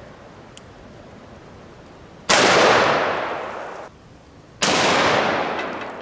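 Two shots from a Smith & Wesson Model 500 revolver in .500 S&W Magnum, about two seconds apart. Each is a sharp, very loud blast followed by a long fading echo.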